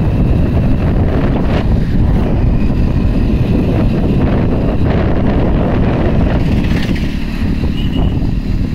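Wind rushing over the microphone with the engine and road noise of an open vehicle moving at speed, a dense steady rumble throughout.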